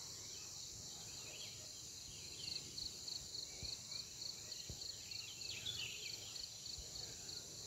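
Outdoor ambience of an insect chorus, a steady high trill with an even pulsing beat, joined from about two and a half seconds in by scattered short bird chirps.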